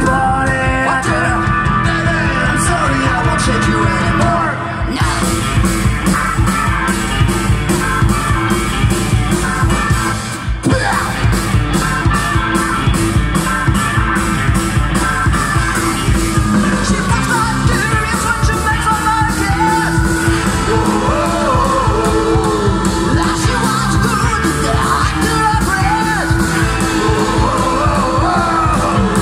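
Live rock and roll band playing loud, with upright double bass, drums, keyboard and electric guitar, and a woman singing over it. The music drops out for a moment about ten seconds in.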